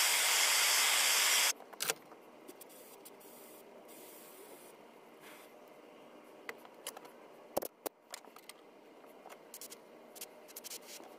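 Hand-held propane torch burning with a steady hiss while heating a Coleman 508 stove's generator to loosen carbon inside it. The hiss cuts off suddenly about a second and a half in as the torch is shut off, followed by a few light clicks of small metal parts being handled.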